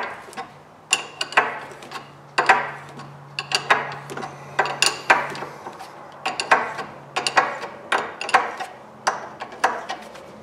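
Hand wrench working a corroded nut off the stem of a brass ball valve, with sharp metallic clicks and clanks about twice a second. The nut is corroded and stays tight to the last thread.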